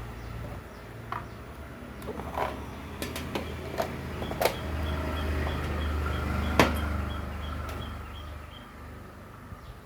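Handling of a temperature-controlled electric soldering iron: a series of scattered clicks and knocks, the sharpest about two-thirds of the way in. A low hum sounds through the middle, with a faint fast ticking over it.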